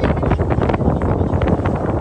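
Wind buffeting the microphone aboard a moving boat, over the steady rumble of the boat's engine.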